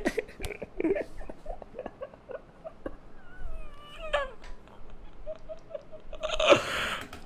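A man's stifled laughter: faint high squeaks and wheezes through his hands, then a breathy burst of laughter near the end.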